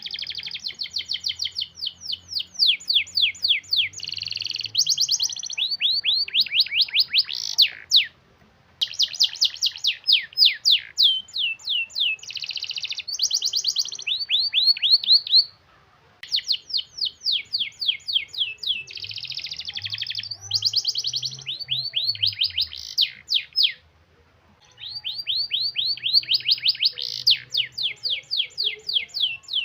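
Domestic canary singing long, tight rolls: fast runs of rapid repeated high notes that change pace from phrase to phrase, breaking off briefly three times.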